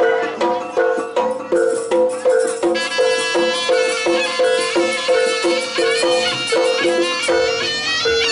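Javanese jaranan gamelan music playing loudly: struck pitched metal instruments repeat a two-note pattern at about three strokes a second, and a high wavering melody joins about three seconds in.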